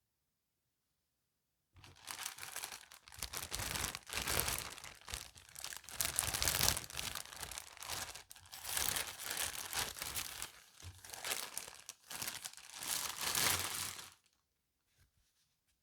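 Packaging crinkling and rustling as it is handled and opened, in uneven bursts that start about two seconds in and stop shortly before the end.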